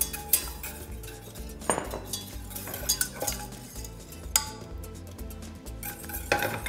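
A stirring utensil clinking and scraping against a stainless steel saucepan as a thickening butter-and-flour espagnole sauce is stirred, in scattered clicks. Background music with a steady low beat runs underneath.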